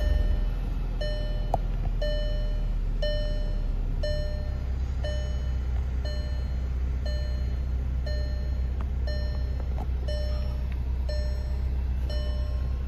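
2010 VW GTI MK6's 2.0-litre turbocharged four-cylinder (CCTA) idling steadily. A dashboard warning chime repeats about twice a second over the idle.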